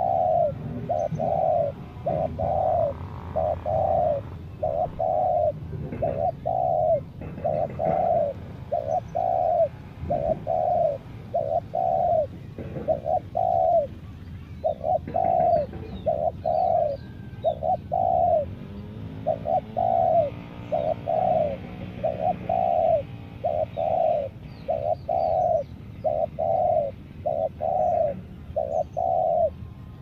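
Spotted dove cooing: a steady run of short, loud coos, about one and a half a second, in groups with brief pauses. Faint chirps of small birds are heard behind it.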